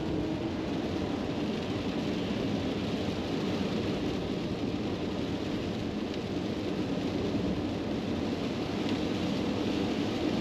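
Steady cabin noise inside a Maxus e-Deliver 7 electric van at highway speed on a wet road: tyres hissing through standing water, with rain falling on the body.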